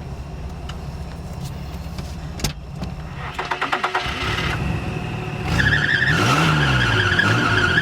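An old high-mileage Nissan Pathfinder's engine running steadily, with a sharp click a couple of seconds in and a quick run of ticks. From about halfway through, a loud, steady high squeal starts while the engine briefly revs up and back down.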